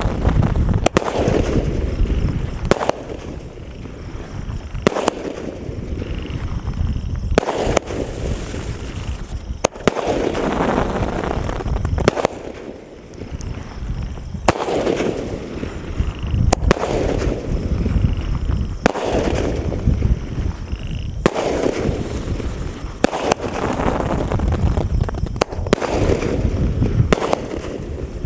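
A Sunshine 15-shot aerial firework cake firing its shots in sequence, a sharp bang about every two seconds, each followed by a rush of crackling noise that fades away.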